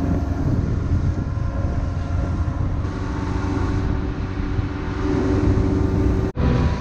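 Goldfish high-performance motorboat's engines running steadily at speed: a continuous low engine drone mixed with the rush of water and wind. The sound cuts out for an instant near the end.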